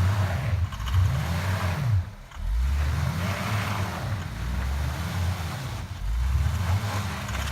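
Car engine revving up and down over and over, with a brief drop about two seconds in: a car stuck in the forest being driven hard to get it free.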